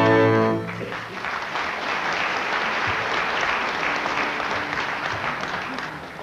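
An orchestral chord ends about half a second in, followed by audience applause that fades out near the end.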